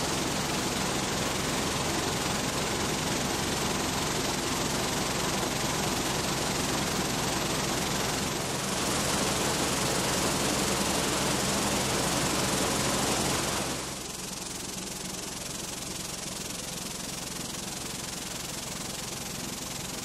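Vibratory finishing tub running: cone-shaped finishing media churning and hissing under a water spray, over a steady machine hum. The sound changes abruptly about 8 seconds in and again about 14 seconds in, and it is quieter after the second change.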